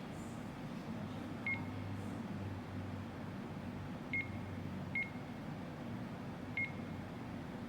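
Cordless phone keypad giving four short, single-pitched key-press beeps at uneven intervals, over a steady low hum.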